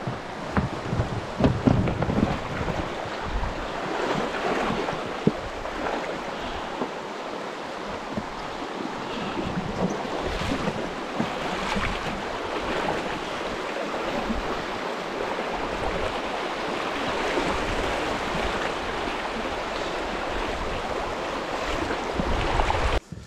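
River water rushing through a shallow riffle around a drifting raft, with wind gusting on the microphone. The noise stays steady and cuts off suddenly near the end.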